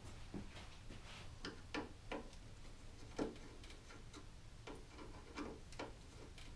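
Quiet, irregular clicks and taps of hands and a small tool working on wiring, over a low steady hum. The loudest tap comes about three seconds in.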